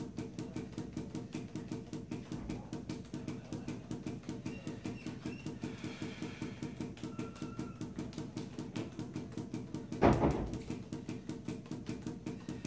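Juggling balls in a 7-ball force-bounce pattern, each thrown down and bouncing off a tiled floor in a fast, even rhythm of knocks. One louder thump about ten seconds in.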